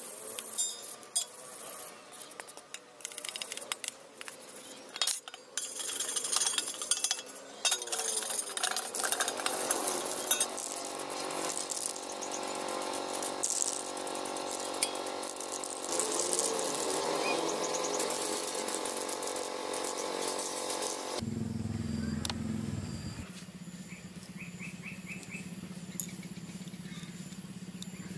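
A hand file rasping in repeated back-and-forth strokes on a flat steel strip, then a steady hiss of an aerosol spray-paint can. Near the end the sound drops to a quieter, low steady hum.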